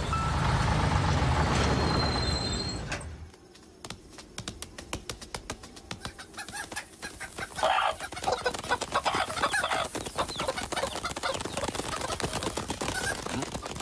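Cartoon chickens clucking, with a flurry of quick sharp clicks that grows busier from about eight seconds in. A loud, low, sustained sound fades out about three seconds in, before the clucking.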